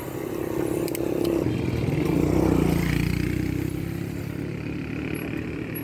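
A motorcycle passing close by, its engine getting louder to a peak about two to three seconds in and then fading away.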